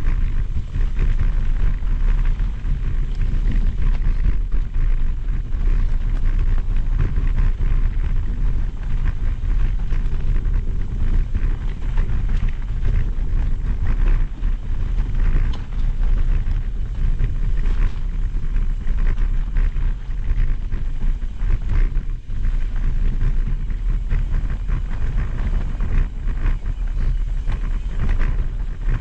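Mountain bike riding down a rocky dirt trail: knobby tyres crunching over stones and gravel and the bike rattling over the bumps, with wind rumbling on the handlebar camera's microphone.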